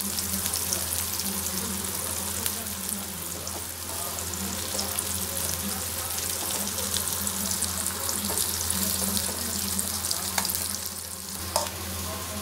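Sliced ginger frying in hot oil, sizzling and crackling steadily as it is stirred with a slotted spoon, over a steady low hum. A single sharp click comes near the end.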